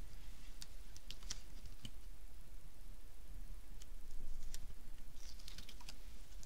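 Light ticks and soft crinkles of a clear acetate sheet and double-sided tape being handled and pressed down on cardstock, coming in a denser patch about four seconds in, over a steady low hum.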